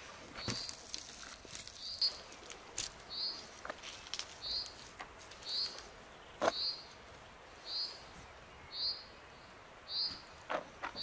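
A bird calling a single short, high chirp over and over, about once a second. A few sharp clicks and knocks, most likely a serving spoon on a metal bowl as rice is scooped out.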